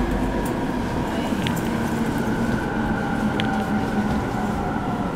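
E231 series suburban train's Hitachi IGBT-VVVF inverter and traction motors giving a steady whine of several tones that slowly falls in pitch as the train slows into a station, heard inside the car over the rumble of wheels on rail, with a couple of brief clicks.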